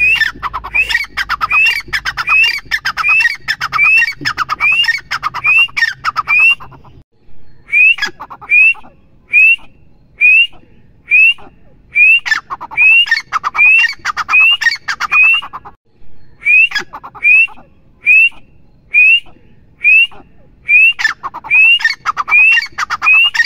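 Grey francolin calling: a loud series of short, rising, whistled notes about two a second over a harsher rattling chatter. The calling comes in three bouts, with brief pauses about 7 and 16 seconds in.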